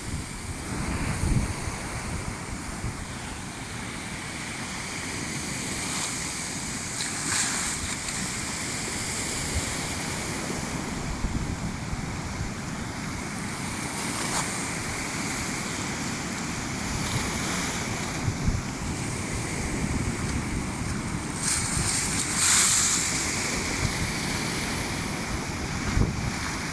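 Rough sea surf crashing and washing on the shore, with wind buffeting the microphone. The hiss of breaking waves swells about seven seconds in and again louder near the end.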